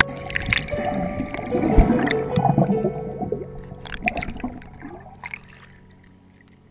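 Pool water gurgling and splashing around a waterproof action camera as it moves underwater and breaks up through the surface. The sound is loudest about two seconds in and then fades away.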